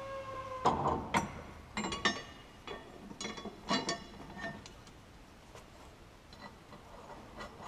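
Steel towbar brackets, bolts and washers clinking and knocking as they are handled and fitted against a van's chassis rail: several sharp metallic clinks with a brief ring, in the first four and a half seconds. A steady whine stops just under a second in.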